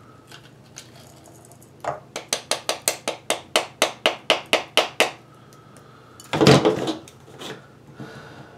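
A hand tool taps quickly and evenly, more than a dozen sharp taps at about five a second, as it knocks a firework shell's packed plug material loose into a ceramic bowl. About six and a half seconds in comes a single louder scraping clatter.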